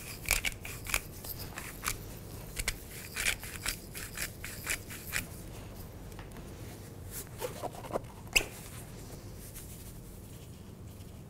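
Pepper grinder twisted by hand, grinding peppercorns in a quick run of short crunchy clicks for about five seconds. A single sharp click follows a few seconds later.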